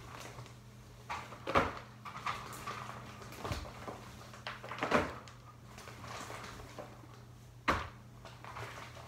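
Irregular knocks and clatter of plastic as hamster cage parts are handled inside a clear plastic bin cage, with four sharper knocks among smaller clicks.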